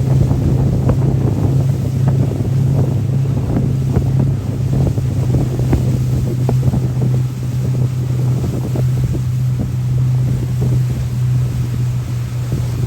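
Motorboat engine running with a steady low drone, with wind buffeting the microphone.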